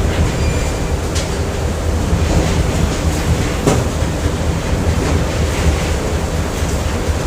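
Factory machinery ambience: a steady, heavy low rumble with a faint hum, broken by a few sharp metallic knocks, one about a second in and a louder one around the middle.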